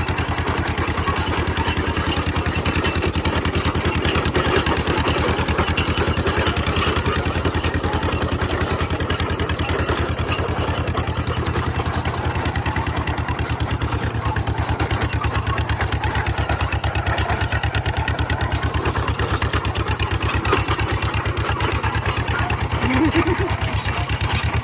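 1954 John Deere 40 crawler dozer's two-cylinder engine running steadily with an even, fast beat.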